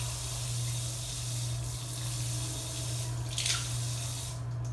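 Water running from a bathroom tap through a fine-mesh washbasin filter and splashing onto the tile floor, then cut off shortly before the end. The flow is weak: the dense filter is thought to restrict it.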